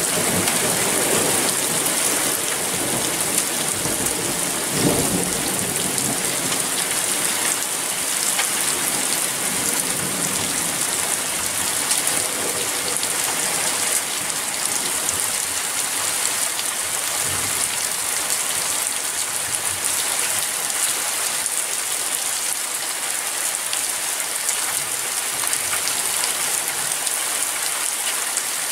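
Steady rain falling during a thunderstorm, with the low rumble of thunder dying away in the first few seconds and a brief further rumble about five seconds in.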